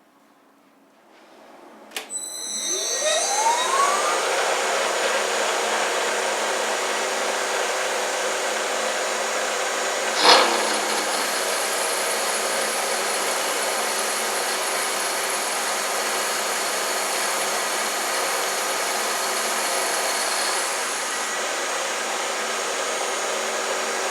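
Jet 836 milling machine's spindle switched on with a click and whining up to speed over a couple of seconds, then running steadily while a hole is drilled through the ring. A brief louder noise comes about ten seconds in.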